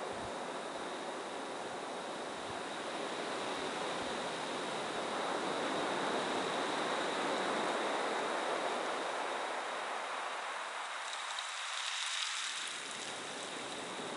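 Ocean surf rushing and breaking on a beach, a steady wash of waves that swells louder through the middle and ends with a brighter hiss.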